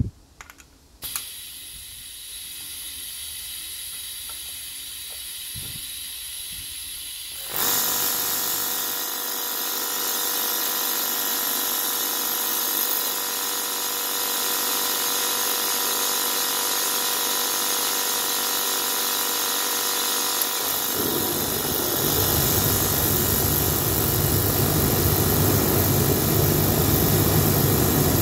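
Compressed air from an external compressor hissing into an oil burner, standing in for the burner's faulty built-in air pump. About a quarter of the way in the burner starts up, adding a louder steady whine. About three quarters of the way in the oil flame lights with a low rumble.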